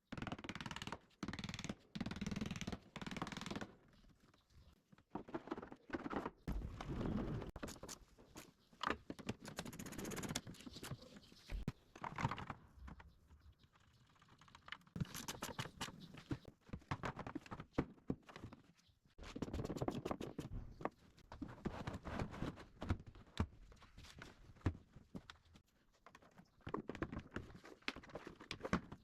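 Irregular clicks, knocks and scrapes of car trim and fasteners being handled and refitted during reassembly of a BMW E36's rear, in clusters with short pauses.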